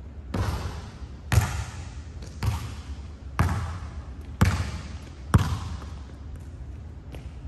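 Basketball bouncing on a hardwood gym floor, six thuds about a second apart, each echoing in the large hall.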